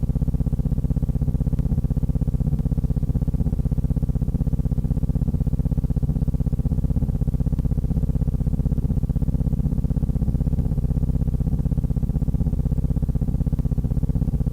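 A steady low hum with a rapid, even pulsing, unchanging throughout.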